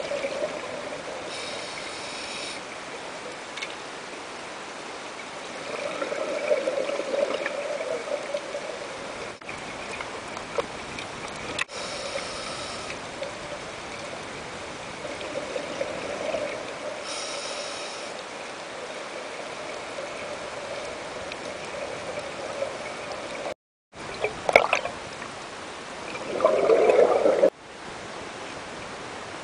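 Underwater sound of scuba diving: a steady bubbling hiss, broken a few times by short bursts of regulator breathing and exhaust bubbles. Near the end the water sloshes and splashes loudly as the camera comes up at the surface.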